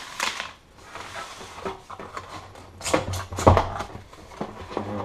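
Cardboard packaging being handled: rustling, scraping and several knocks as a cardboard insert is lifted out of a box, the loudest knock about three and a half seconds in.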